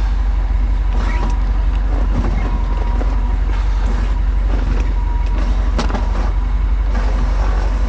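A 1960 Ford Thunderbird's 352 V8 idling with a steady low rumble, while an electric power window motor whines steadily for a few seconds from about a second in. The rear window is slow and sticking and needs a push to go down.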